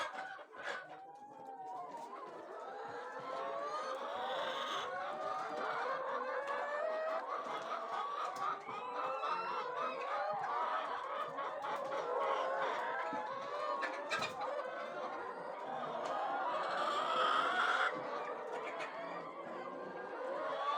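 A flock of chickens in a chicken house clucking and calling over one another in a dense, continuous chorus. A single short knock sounds about two-thirds of the way through.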